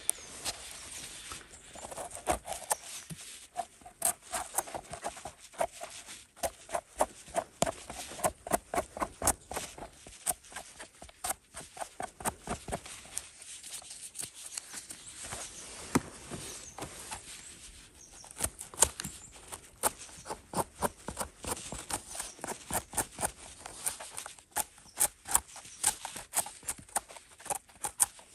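Footsteps crunching through dry leaf litter and twigs on a forest floor, an irregular run of crackling steps, at times two to three a second.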